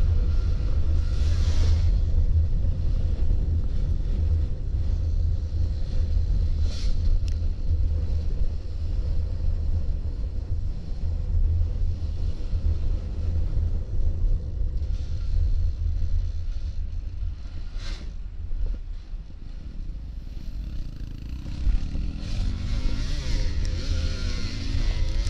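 Motorcycle engine running with a steady low rumble; the engine note rises near the end.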